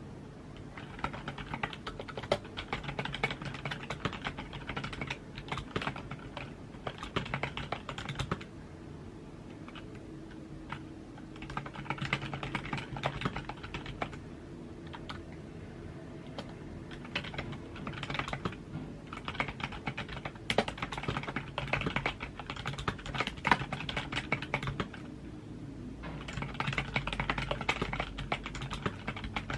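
Typing on a computer keyboard: fast runs of key clicks in bursts of several seconds, broken by short pauses, with a few louder strokes standing out, over a faint low hum.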